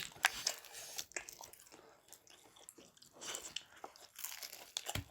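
Fried chicken being bitten and chewed: irregular crisp crunches of the breaded coating.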